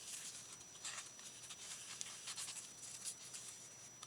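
Faint, intermittent rustling and light ticks of craft materials being handled on a desk: paper and lace trim being sorted and shifted.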